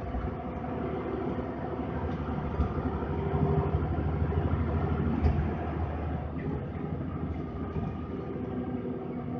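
Inside the cabin of a moving intercity bus: steady engine and road rumble, swelling a little a few seconds in and easing off again, with a couple of light knocks.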